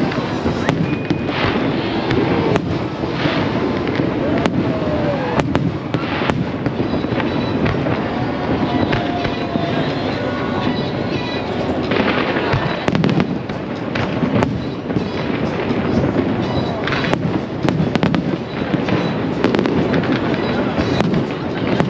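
Aerial fireworks going off in quick succession: many sharp bangs and pops, some in crackling clusters.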